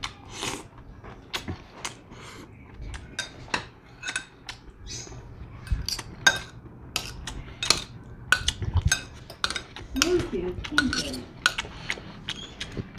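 Metal fork and spoon scraping and clinking against a plate, with many irregular sharp clicks as the last noodles are gathered up.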